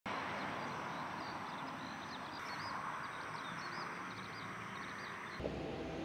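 Outdoor early-morning ambience: many small birds chirping and twittering high over a steady background hiss. Near the end it cuts suddenly to a low rumble indoors.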